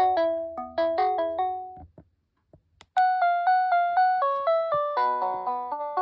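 GreenLyca GL70281 telephone playing its electronic, piano-like ringtone melodies. One tune stops about two seconds in, a few faint clicks fall in a short pause, and a different tune starts about a second later.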